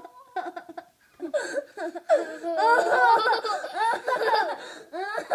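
Laughter, several voices at once, starting about a second in and going on through the rest.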